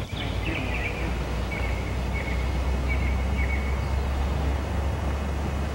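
Outdoor ambience: a steady low rumble with a few short, high bird chirps during the first three seconds or so.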